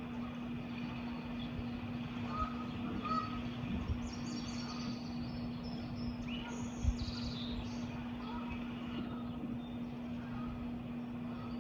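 Wild birds chirping and calling in short bursts, some low and some high-pitched, over a steady background hum of environmental noise. A brief low thump comes a little past the middle.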